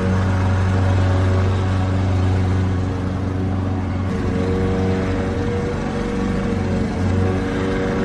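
Lawnmower engine running steadily. Its note and level sag slightly from about three seconds in and pick back up near the end.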